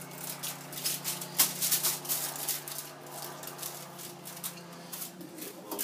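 Aluminum foil crinkling and crackling in quick irregular bursts as it is handled and folded, with a sharper crackle about one and a half seconds in.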